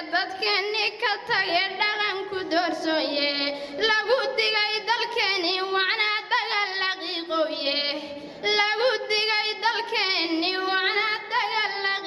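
A young woman chanting a Somali gabay poem in a melodic, unaccompanied sung recitation into a handheld microphone, with a brief pause between lines about eight seconds in.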